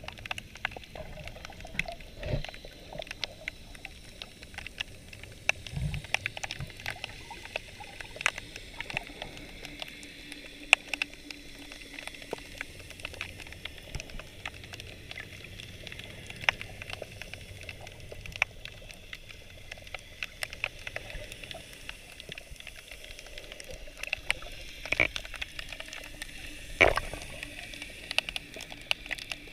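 Underwater ambience: a steady wash of water with many scattered sharp clicks and crackles, and a few louder knocks, the loudest about 27 seconds in.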